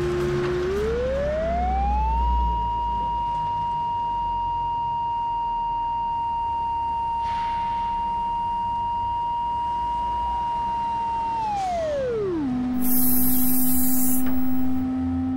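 A cable locator receiver's pure beeping tone glides up in pitch, holds high and steady for about nine seconds, then drops to a low tone. Near the end comes a short, loud hiss of spray paint marking the ground.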